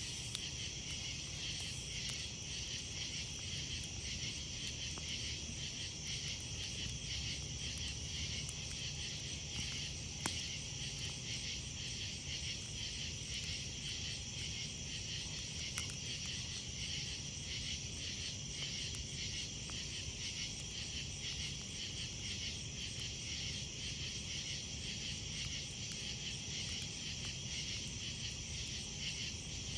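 A night chorus of insects chirping in a steady, fast pulsing trill, over a wood campfire burning with a low rustle and a few sharp crackles and pops, the clearest about 10 and 16 seconds in.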